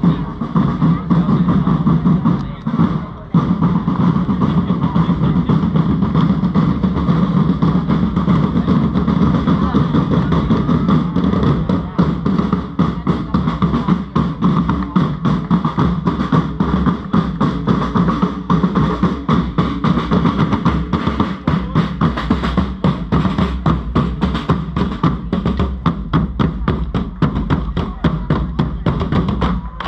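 Parade drums beating a fast, steady rhythm under a sustained droning tone, the live music of a marching medieval-style procession.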